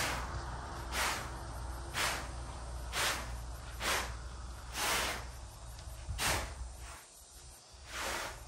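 Rhythmic swishing strokes, about one a second, with a short pause about seven seconds in.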